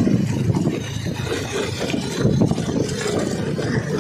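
Motorcycle running on the move, an uneven low rumble of engine and riding noise.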